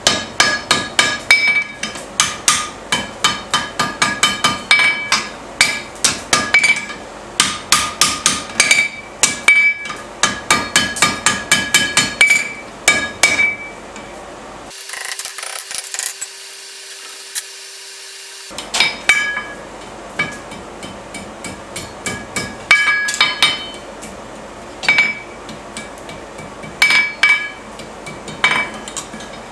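Hand hammer striking red-hot iron on an anvil horn, quick ringing blows at about three a second. About halfway through the blows stop for a few seconds, leaving a steady hum, then sparser blows resume.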